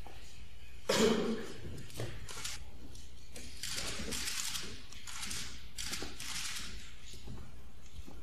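Live room sound of a runway show: a sudden knock about a second in, then scattered clicks and light footsteps with a faint murmur of voices.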